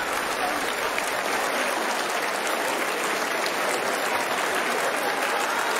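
Audience applauding, a dense, steady clapping from a large crowd in a hall.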